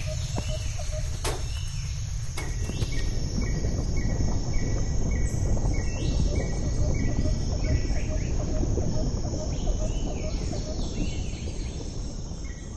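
Insects chirping in a steady repeating pattern over a low rumbling noise bed that swells a couple of seconds in and starts to fade near the end.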